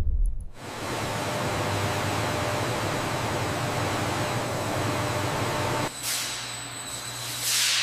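Factory machinery: a low thud, then a steady hiss over a low hum for about five seconds, dropping off and followed by two falling whooshes near the end.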